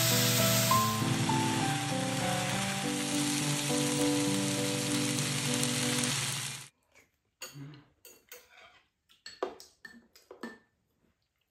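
Chicken and chopped green onions sizzling in a hot frying pan under background music; both cut off abruptly about two-thirds of the way through. After that, scattered faint clinks of chopsticks and spoons against bowls and the pan.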